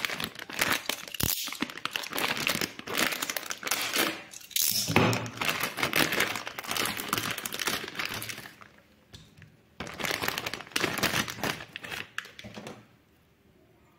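Clear plastic packaging bag crinkling in irregular bursts as it is handled and pulled off a display board and wiring harness, stopping about a second before the end.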